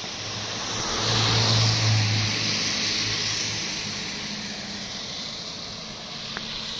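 A motor vehicle passing close by on a wet road: an engine hum under tyre hiss, swelling to its loudest a second or two in and then fading slowly away.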